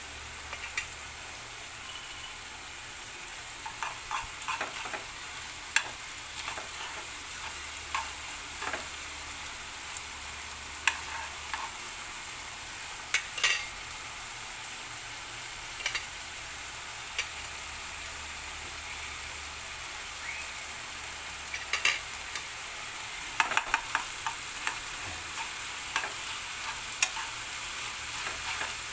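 Pork giniling with diced potatoes and bell peppers sizzling steadily in a frying pan, with scattered sharp pops and clicks. Near the end a spatula stirs the mixture in the pan.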